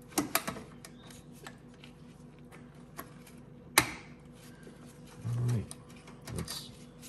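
Scattered clicks and taps of hand tools and metal parts being handled while fitting fuel injectors and a fuel rail, with one sharp click just before the middle and two brief low hums later on.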